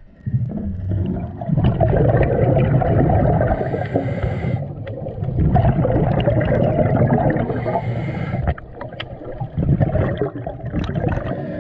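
Bubbling, churning water in three long surges of a few seconds each, with scattered clicks.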